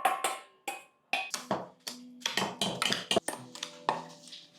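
Kitchen clatter: quick taps, knocks and clinks of dishes and utensils, with background music under them.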